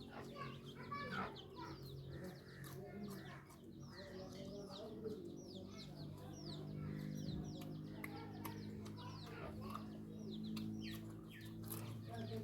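Chickens clucking, with many short, high falling chirps repeated several times a second, over a steady low hum.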